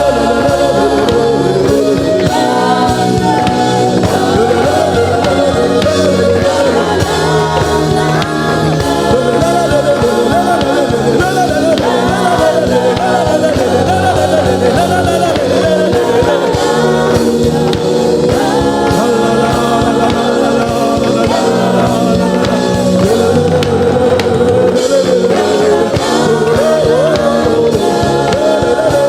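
Gospel worship music: singing voices over a backing band, carrying on steadily.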